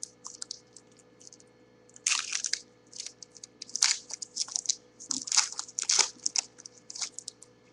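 Trading card pack wrapper being torn open and crinkled by hand, in a run of crackly bursts, with the cards inside handled and slid out.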